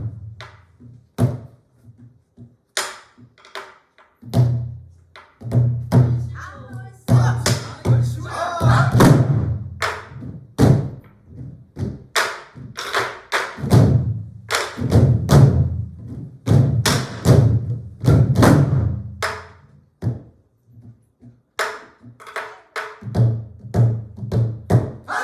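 An ensemble of Korean soribuk barrel drums played in rhythmic phrases, deep thuds on the drumheads mixed with sharp stick cracks, with brief pauses between phrases.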